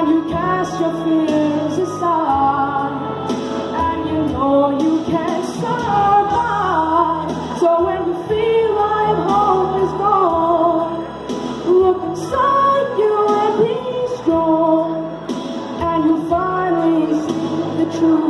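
Singing over a pop ballad backing track.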